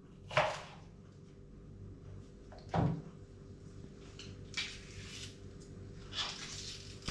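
Kitchen handling of leeks: a few separate knife knocks and scrapes on a cutting board and the crisp rustle of leek layers being stripped, spaced a second or so apart, over a faint steady hum.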